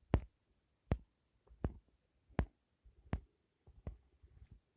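A series of short, sharp clicks or taps, about seven of them, coming roughly once every three-quarters of a second in a small room.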